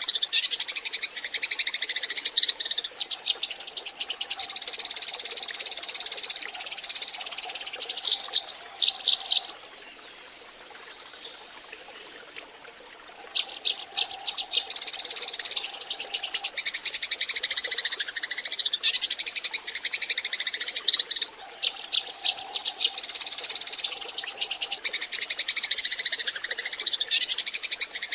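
A flock of Eurasian tree sparrows chattering: dense, rapid overlapping chirps. The chorus drops away for about three seconds roughly ten seconds in, then resumes.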